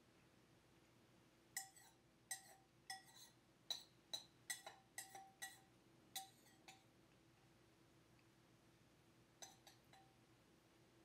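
Light, ringing metallic clinks over near silence: about ten quick strikes, then three more near the end, each ringing briefly at the same few pitches.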